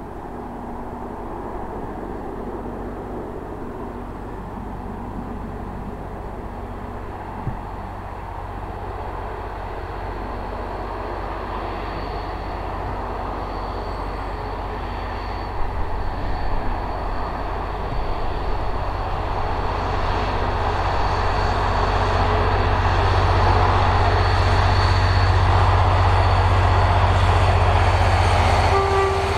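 Mainline diesel locomotive hauling a train of coaches, its engine drone growing steadily louder as it approaches and is loudest as it passes near the end. A thin high ringing tone joins in about halfway through.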